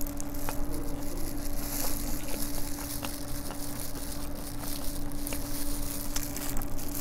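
Close-miked chewing of seasoned fried chicken: many small wet clicks and smacks from the mouth, over a steady low hum.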